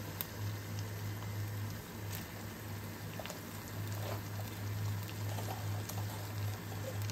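Minced pork and sliced hotdog sizzling in a frying pan, with a few light ticks and a steady low hum underneath.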